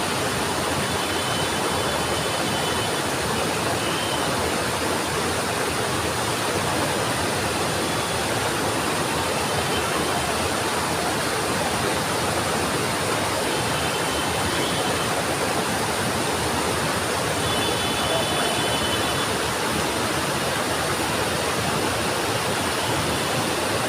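Steady, unbroken rushing of water from the flood, with no rise or fall.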